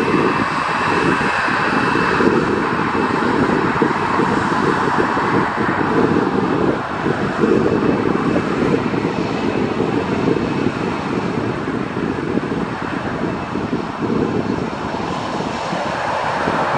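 Boeing 737's CFM56 turbofan engines running at taxi power as the airliner turns on the runway: a steady jet rumble and rush, with a faint high whine in the first few seconds.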